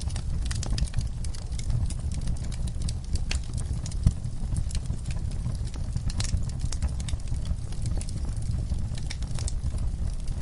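Wood fire crackling and popping in a fireplace: many irregular sharp crackles over a steady low rumble of the flames, with one louder pop about four seconds in.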